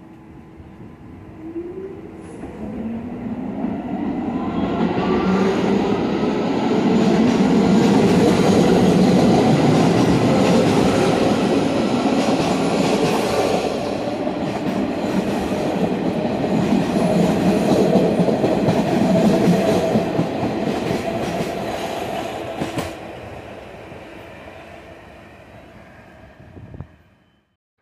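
R46 subway train pulling out of the station. Its traction motors whine upward in pitch as it accelerates, and the wheels clatter over the rail joints as the cars pass. The sound builds to a peak, then fades as the train leaves, and cuts off just before the end.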